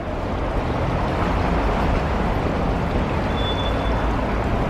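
Steady urban street background noise, a low rumble like road traffic with no distinct events.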